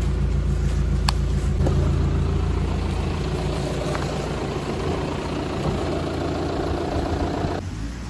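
Car engine running steadily close by, a low even hum. Its note changes about three seconds in, and it drops away suddenly near the end.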